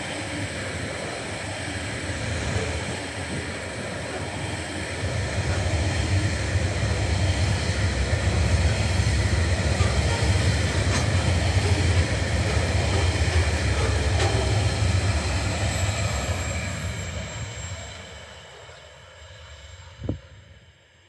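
Container wagons of a TasRail freight train rolling past, a steady rumble and clatter of steel wheels on the rails. It fades away after about seventeen seconds as the end of the train recedes, with a single sharp click near the end.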